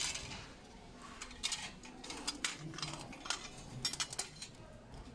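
Metal and glass decorative pieces clinking against each other and the wire shelving as they are picked up and handled: a string of light, irregular clinks and knocks.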